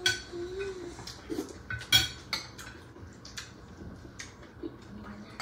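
Metal spoons and forks clinking against plates and bowls as people eat, in scattered sharp clinks, the loudest right at the start and about two seconds in.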